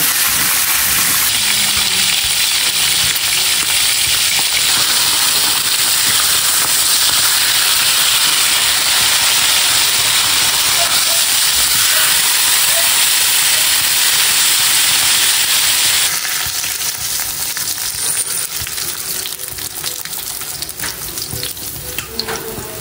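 Oil sizzling steadily as whole fish fry in a frying pan. About two-thirds of the way through, the sizzle drops quieter and turns to a sparser crackle with a few sharp clicks, as the fish are lifted out with tongs.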